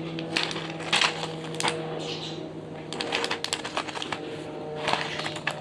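Medicine boxes and blister strips being handled: a run of irregular light clicks and crinkles, over a steady low hum.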